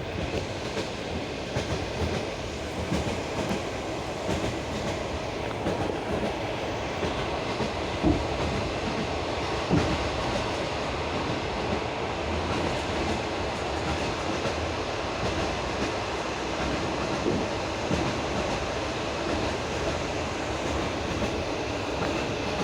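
Passenger railway carriage rolling along the track, heard from inside the carriage: a steady rumble of wheels on rails with scattered clacks over the rail joints. Two sharper knocks come about 8 and 10 seconds in.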